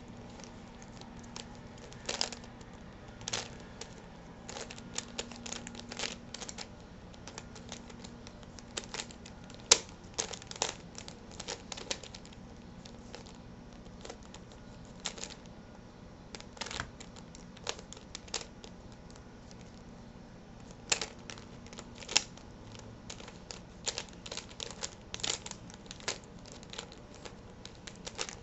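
Square-1 puzzle being turned by hand: irregular plastic clicks and clacks as its layers are twisted and sliced, in quick runs with short pauses.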